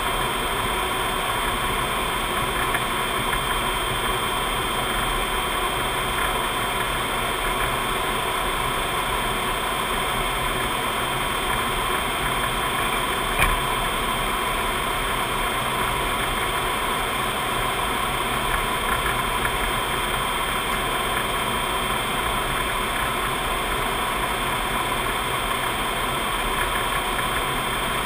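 Steady cockpit noise of a C-5 Galaxy in cruise flight: a constant mix of airflow and engine noise carrying a few steady high tones. One brief click about halfway through.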